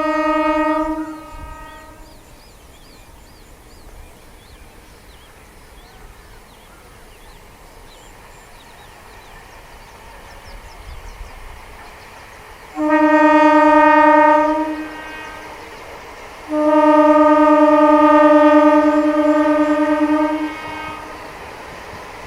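MEMU electric multiple-unit train sounding its horn three times: one blast cuts off about a second in, a short blast of about two seconds comes a little past halfway, and a longer blast of about four seconds follows. Between the blasts, the train's running noise continues more quietly.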